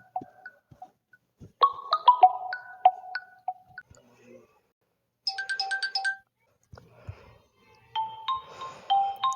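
Huawei P30 ringtones played one after another: short melodic phrases of ringing, plinked notes. One phrase repeats, a brief bright chime-like figure comes about five seconds in, and a different tune starts near the end.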